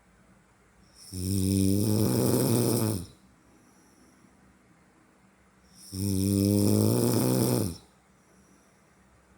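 Snoring in slow breaths: two long snores, each about two seconds long, about five seconds apart.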